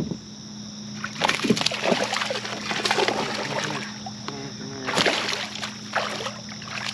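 A hooked bass thrashing at the surface beside a kayak, splashing in bursts, the longest from about one to three and a half seconds in and another around five seconds.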